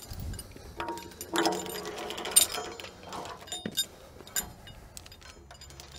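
Steel chain being handled and hooked up, its links clinking and rattling in a run of sharp metallic clicks and knocks, busiest in the middle.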